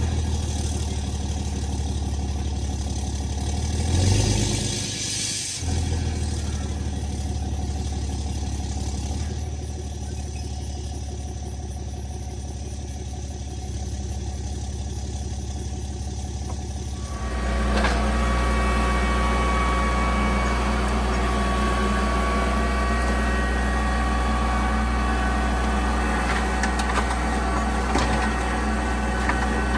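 A tractor engine running steadily, stepping up to a louder, busier run about seventeen seconds in.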